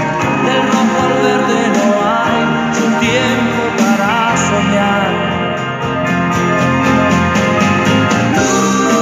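Electronic keyboard playing an instrumental passage: held chords under a melody line that bends and wavers in pitch a few seconds in.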